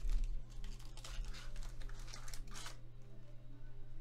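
Foil wrapper of a Polaroid 600 film pack and its cardboard box crinkling and rustling as they are handled, in several short crinkles over the first three seconds, with a steady low hum underneath.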